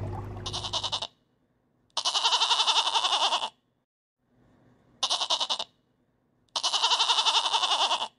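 A goat bleating four times, in alternating short and long quavering calls. Over the first second, a steady running-water noise with a low hum.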